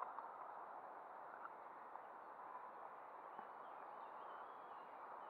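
Faint, steady outdoor background hiss with a few distant bird chirps heard faintly in the second half.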